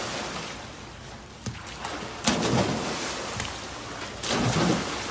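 People diving into a swimming pool one after another, each entry a sudden splash of water, with a few sharp knocks in between.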